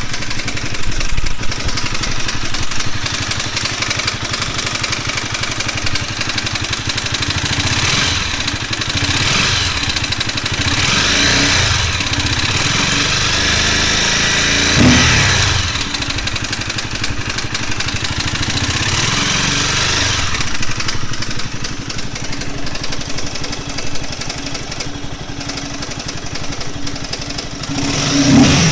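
Honda CBR250R motorcycle engine running, revved up and down several times in the middle stretch, with the rattling noise whose cause the owner cannot place.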